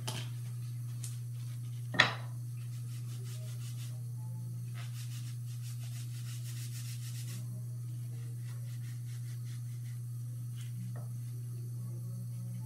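A single sharp knock about two seconds in. Then comes soft rubbing and rustling as an alcohol-soaked napkin is worked along the glued lace of a wig at the hairline to loosen the glue, over a steady low hum.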